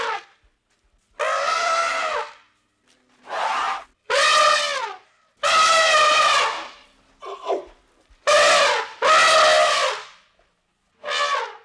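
Elephant trumpeting: a series of about eight loud, brassy calls, each lasting under a second to about a second, with short silent gaps between.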